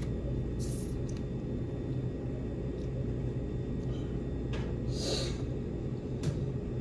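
A person sucking and slurping fish meat off the bones of a whole tilapia: a few short slurps, the longest about five seconds in, over a steady low room hum.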